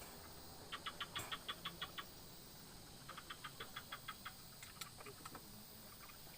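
An animal calling in short, rapid trains of chirping notes, about eight a second, each train lasting about a second and repeated twice.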